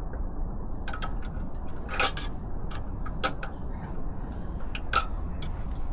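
Scattered clicks and knocks of metal and plastic parts as a tight heat-shield clip is worked onto the slip-on exhaust, over a steady low rumble.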